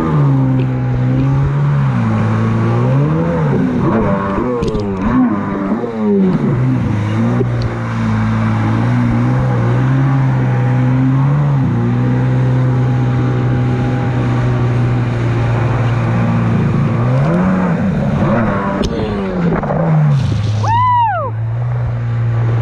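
Stand-up jet ski engine running under way, its pitch rising and falling several times as the throttle is worked, over the hiss of water spray and wind.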